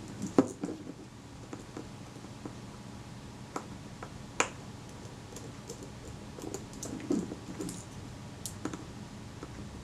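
Scattered small sharp clicks and taps of a screwdriver and tiny metal screws and washers being worked out of a camera lens, the lens-capsule retaining screws coming out; the loudest click is about half a second in and another at about four and a half seconds. A faint steady hum runs underneath.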